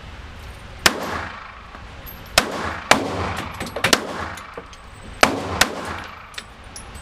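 Gunfire at a shooting range: about six sharp, irregularly spaced shots, a pair about half a second apart near the middle and again later, each followed by a short ringing echo.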